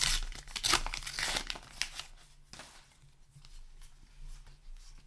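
A paper booster-pack wrapper being torn open and crinkled, loudest in the first two seconds, then fainter rustling and light ticks.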